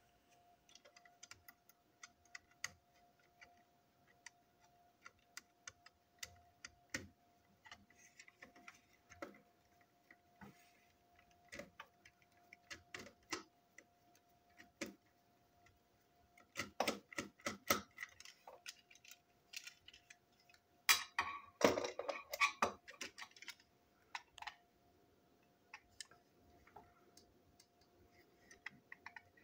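Screwdriver clicking and scraping on the small screws of a toy brake van's chassis, with light clicks and clatter as the parts are handled. The clatter gets busier in two spells in the second half.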